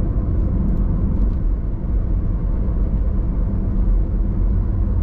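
A car driving on a road: a steady low rumble of engine and tyres.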